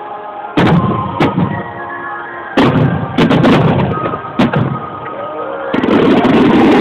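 Aerial fireworks bursting with loud booms over music, about five bangs in the first four and a half seconds. Near the end a dense, continuous crackle takes over.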